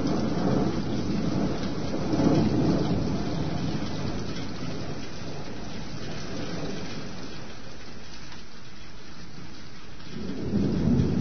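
Thunderstorm: steady rain with low rolling thunder, swelling about two seconds in and again near the end.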